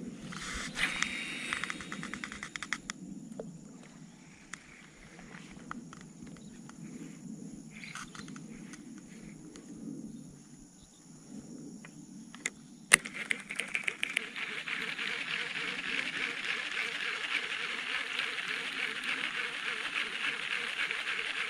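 Baitcasting fishing reel: a few light clicks as it is handled, then a sharp click about two-thirds of the way through, followed by a steady buzzing whir as the reel is cranked.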